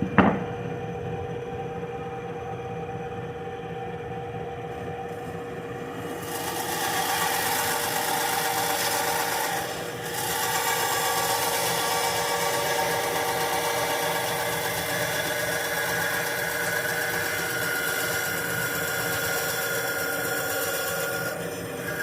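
Harbor Freight benchtop bandsaw running with a steady motor hum, a knock right at the start; about six seconds in the blade starts cutting wood with a hissing rasp that breaks off briefly and continues until just before the end, as a curved shape is cut out.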